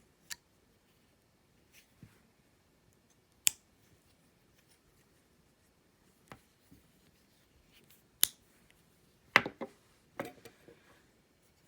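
Pocket knife blades snapping shut one after another on old multi-blade folding knives with brass liners: several sharp metal clicks spaced a few seconds apart, the loudest about nine seconds in.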